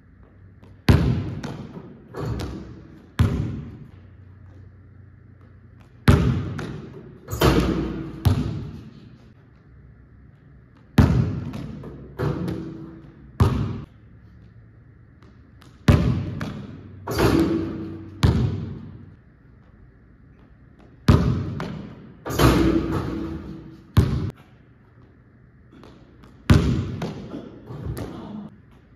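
A basketball bouncing and thudding on a hardwood gym floor during dunk attempts. It comes in groups of a few sharp bounces about every five seconds, each group dying away, and echoes in the large room.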